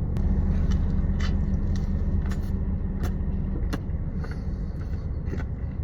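Steady low rumble of a car idling, heard from inside the cabin, with a few faint clicks of chewing.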